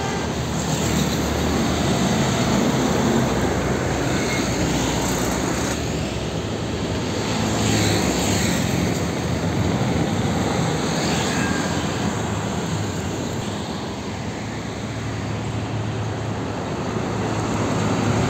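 Heavy diesel trucks passing close by one after another: a steady engine drone and tyre roar that swells as each truck goes past and eases between them.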